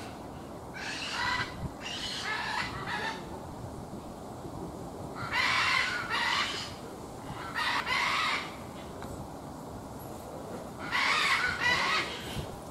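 Otter giving harsh, high squealing calls, about seven, mostly in close pairs, while it handles and eats a worm, over the steady rush of a stream.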